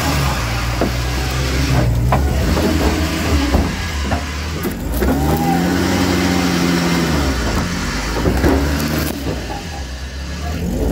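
A vehicle engine running steadily, revving up and easing back down about halfway through and again near the end, with a few sharp metallic clanks.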